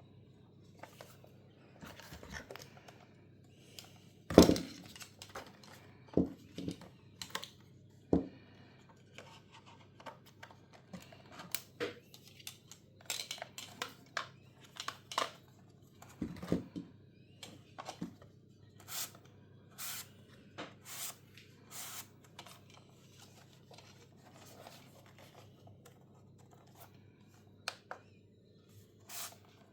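Irregular handling noises: scattered clicks, knocks and rustles, with one loud knock about four seconds in and a quick run of sharp clicks later on.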